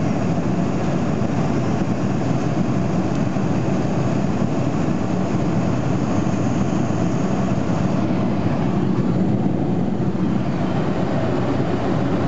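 Steady roar of airliner cabin noise, with a higher hiss on top that thins out about eight seconds in.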